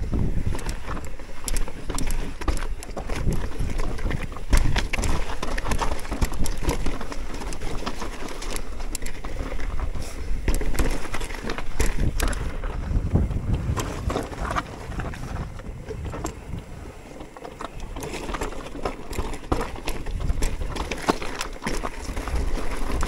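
Mountain bike rattling and knocking over a rocky trail, tyres crunching on loose stones, with wind rumbling on the microphone; the clatter eases for a moment about two-thirds of the way through.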